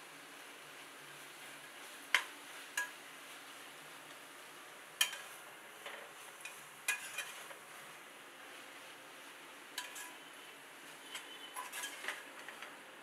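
Steel spatula stirring onion-tomato masala in a metal pot, knocking and clinking against the pot's side and rim in sharp, ringing clinks at irregular intervals, over a faint steady hiss.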